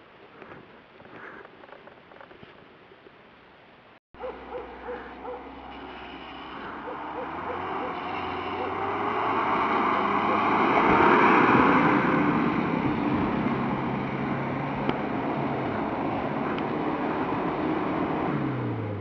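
Mitsubishi Pajero 4x4 engine revving hard as the SUV ploughs through deep snow. It starts suddenly about four seconds in, grows louder to a peak near the middle, then holds steady. Before it, only faint scattered rustles.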